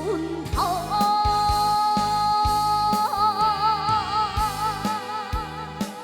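A young girl singing trot, scooping up into one long high note that she holds steady, then with a wide vibrato for roughly the second half. A karaoke backing track with a steady drum beat plays underneath.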